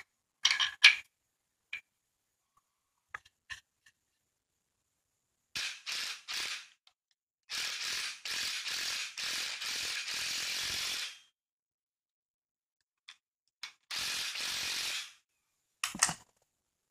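Cordless impact wrench running the top nut down onto a front strut mount: a few short bursts, then one long run of about four seconds and a last burst near the end. A few metal clinks come first as the washer is set on the strut mount.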